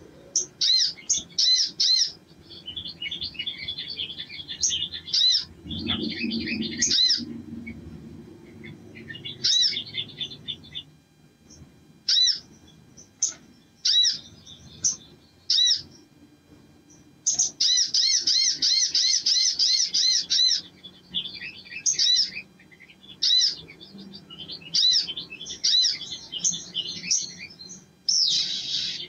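Male olive-backed sunbird singing: bursts of rapid, high twittering trills and sharp repeated chips, separated by short pauses.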